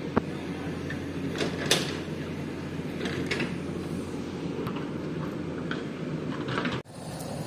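Steady low drone of a backhoe loader's engine running at work, with scattered light clicks and scuffs of footsteps on concrete and loose stone. The sound drops out abruptly for a moment near the end.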